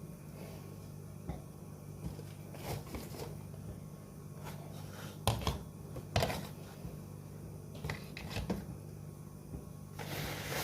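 Scattered light knocks and clicks of objects being handled, a few seconds apart, over a steady low hum, with a rustle starting near the end.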